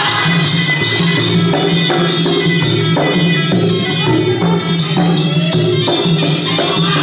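Traditional Kun Khmer boxing music: a reed oboe melody over drums and small hand cymbals keeping a steady, driving beat.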